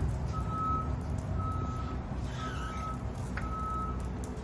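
Electric forklift's warning beeper sounding as it moves: a single high beep repeating about once a second, over a steady low rumble.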